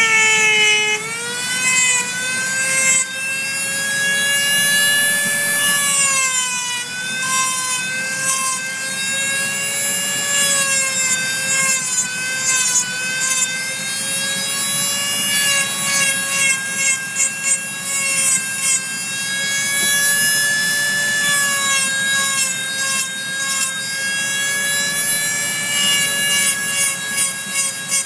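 Flexible-shaft rotary carving tool spinning a bit into wood: a high motor whine that wavers and dips in pitch as the bit is pressed into the work, over a gritty grinding of the bit in the wood. In the last several seconds the grinding comes in quick pulses as the bit is touched on and off the wood.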